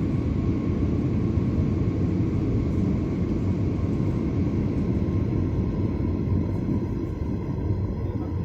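Cabin noise of an airliner in flight: a steady rumble of jet engines and airflow with a faint steady whine, easing slightly near the end.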